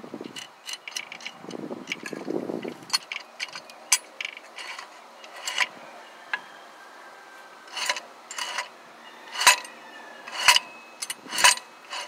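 Irregular metallic clicks and clinks of hardware and tools handled against a steel engine mount plate and its studs. They grow denser toward the end, with three sharp clanks in the last few seconds.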